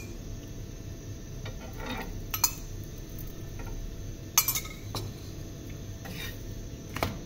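Metal cooking utensil clinking and scraping against cookware on the stove, with a few sharp clinks about two and a half, four and a half and seven seconds in, the middle one the loudest, over a steady low hum.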